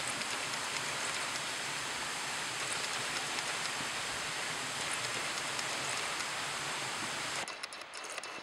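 Steady rushing water of Daisen Falls, an even hiss-like wash of sound that drops away sharply about seven and a half seconds in, with a few faint clicks.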